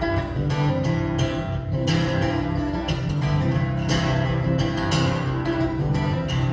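Acoustic guitar in open C tuning (CGDGBE) playing an instrumental break in a cowboy song, with plucked melody notes over ringing bass strings.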